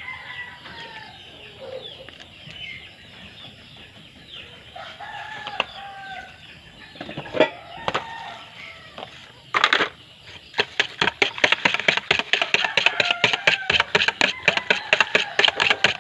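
Chickens clucking. About seven and eight seconds in come sharp taps of an egg being cracked, then a rapid, even clicking, about six strokes a second, of eggs or batter being beaten by hand in a plastic bowl.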